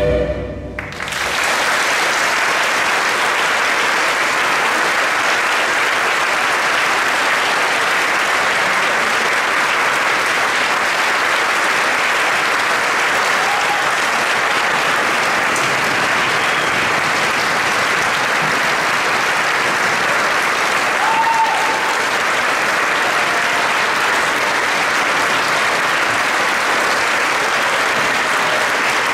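The choir's final note dies away at the very start, then a large audience applauds steadily and unbroken.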